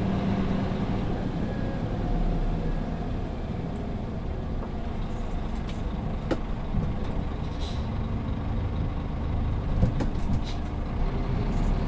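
Scania P360 dump truck's diesel engine running steadily, heard from inside the cab, with a few sharp clicks around the middle and near the end.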